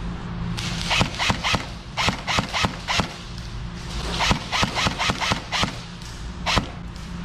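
Airsoft gun firing in three quick strings of about half a dozen shots each, then a single shot near the end, over a steady low hum.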